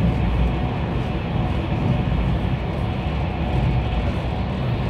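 Cabin noise of a high-speed train cruising at about 200 km/h: a steady low rumble with an even hiss of wheels and air over it.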